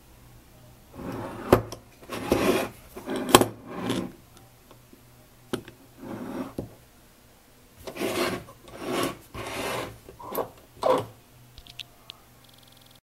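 Irregular scraping and rubbing sounds with a few sharp clicks, as a small homemade metal air engine is handled and moved about by hand on a wooden table.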